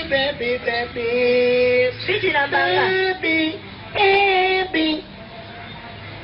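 A man singing unaccompanied in a high voice, in short phrases of long held notes, breaking off about five seconds in.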